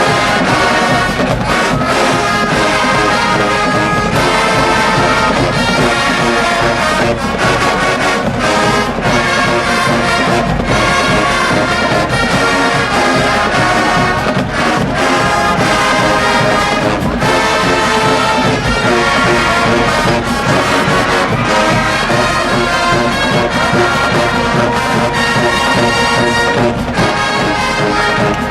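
HBCU-style marching band playing: loud brass (trombones and trumpets) carrying the tune over driving drumline percussion.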